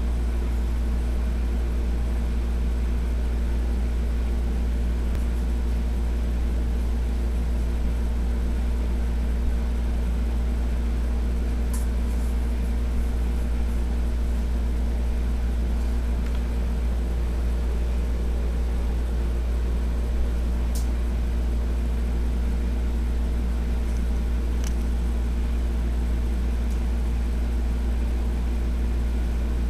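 A steady low hum, unchanging in level, with a few faint ticks.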